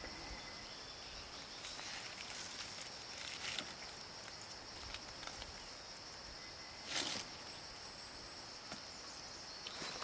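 Steady high-pitched drone of insects, with scattered faint rustles and scrapes and one brief louder scrape about seven seconds in.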